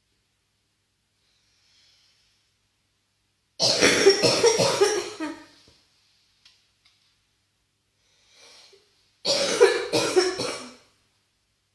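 A person's deep, harsh bronchitis cough: two fits of several rapid coughs each, the first about three and a half seconds in and the second near the end, with a faint breath drawn in between.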